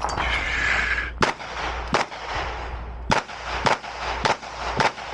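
Semi-automatic pistol firing about six shots, starting about a second in and spaced roughly half a second to a second apart.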